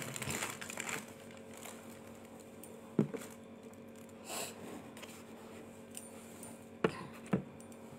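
Plastic Tupperware storage containers being handled and set down: rustling in the first second, then a few short knocks, one about three seconds in and two close together near the end.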